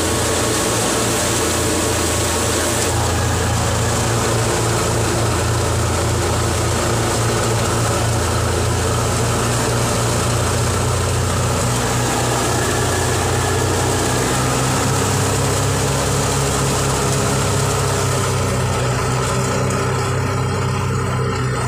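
An old Fiat 480 tractor's diesel engine running steadily under load, driving a belt-driven wheat thresher whose drum whirs as wheat is fed in and threshed grain pours out. A continuous low, even drone with no breaks.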